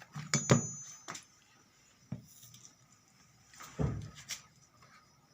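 Tools and parts handled on a repair bench: a few separate knocks and clicks, the loudest cluster about half a second in and another just before four seconds.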